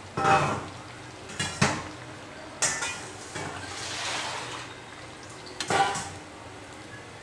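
Malpua frying in hot oil in a kadhai, a steady sizzle, with a spatula knocking and scraping against the pan four times as the pancake is pressed and turned.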